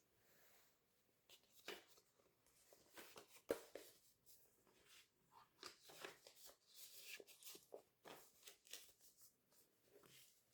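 Faint rustling and light clicks of small objects being handled, irregular and close, with one sharper tap about three and a half seconds in.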